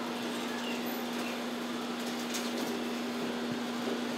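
Steady room hum: a constant low tone under an even hiss, with no distinct events.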